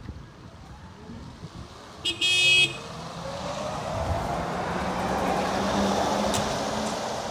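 Articulated trolleybus sounding one short horn toot about two seconds in. It then passes close, its electric traction motor whining higher as it speeds up over the rush of its tyres, and fades out near the end.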